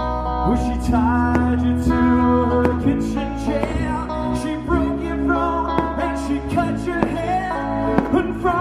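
Live band music: a sung vocal melody over guitar, with held low bass notes underneath.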